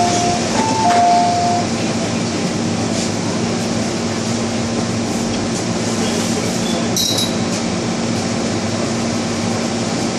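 Inside an MTR M-Train car: a two-note, high-then-low chime sounds twice at the start, over the train's steady rumble and a constant hum. A brief high-pitched squeal comes about seven seconds in.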